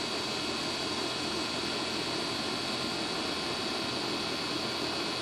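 Goodman outdoor air-conditioning condensing unit running: a steady rush of condenser-fan air over the running compressor, with no change in level.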